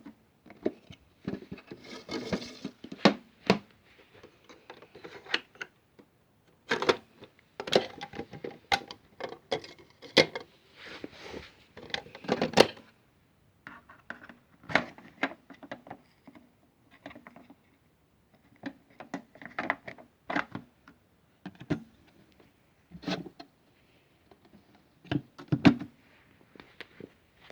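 Modified toy washing machine in an unbalanced spin, its plastic body knocking and rattling in irregular bursts of sharp strikes with short gaps between.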